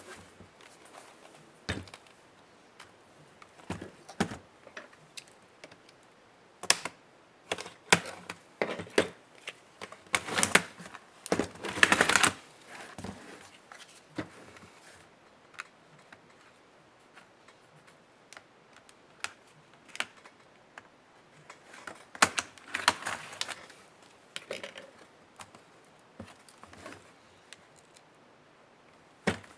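Small plastic and metal parts of an HP Pavilion 13 laptop being handled during disassembly: irregular clicks and taps, with a few longer scraping stretches of plastic rubbing on plastic.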